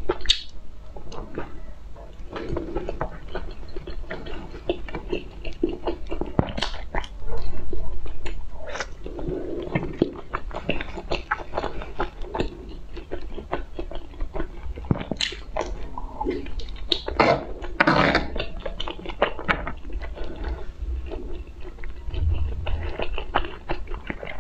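Close-miked chewing and biting: a person eating, with many short, crackly mouth sounds.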